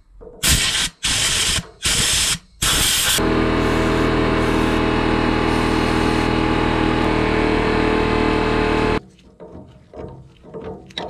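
Aerosol can spraying the battery terminals: a few short hissing bursts, then one long continuous spray with a steady hum under the hiss for about six seconds, cut off abruptly. Light clicks and handling noises follow.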